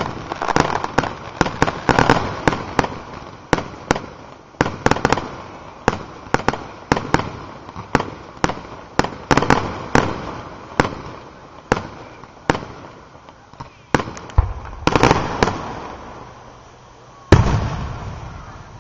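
Aerial firework shells bursting: a rapid, irregular series of sharp bangs, each with an echoing tail. The bangs thin out about sixteen seconds in, then one loud boom comes near the end.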